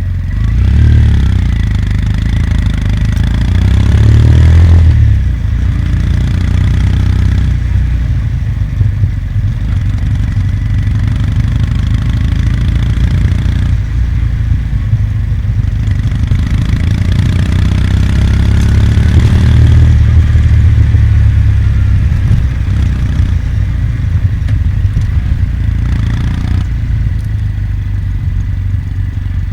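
Kawasaki W800's air-cooled parallel-twin engine running as the motorcycle rides along, revs rising and falling with throttle and gear changes, with a clear climb in revs about four seconds in and again near twenty seconds.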